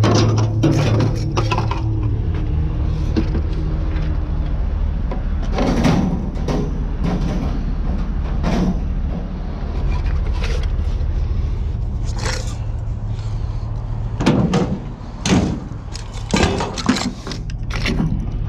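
Irregular knocks, clatters and scrapes of junk being shifted and dragged out of a container with a metal hook, over a low steady rumble.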